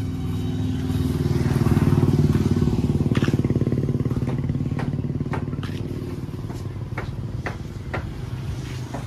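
Swaraj 744 FE tractor's three-cylinder diesel engine running at a steady idle. It grows louder about a second in, then eases off, with several sharp clicks or knocks from about three seconds on.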